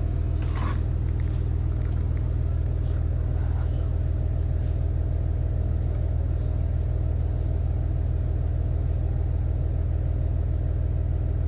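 Diesel-hybrid railcar engine idling: a steady low rumble that holds an even pitch and level.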